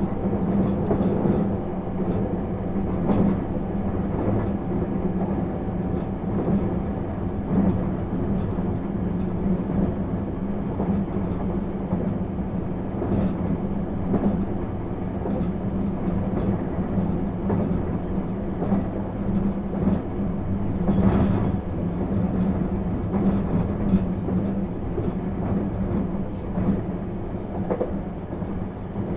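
Cabin running sound of a JR 651 series electric train: a steady rumbling hum of the car rolling along the track, with scattered knocks from the wheels over rail joints.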